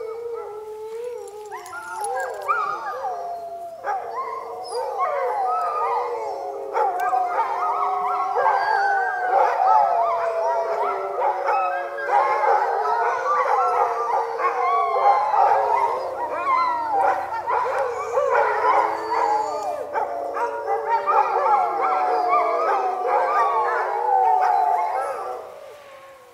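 A pack of sled dogs howling in chorus, many overlapping wavering howls at once. The chorus swells about two seconds in and fades out near the end.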